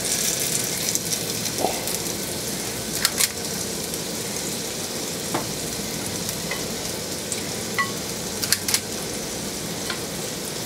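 Raw meatballs sizzling in oil in a stainless steel frying pan on medium heat, a steady frying hiss. A few sharp clicks sound as more meatballs are dropped in with a metal cookie scoop.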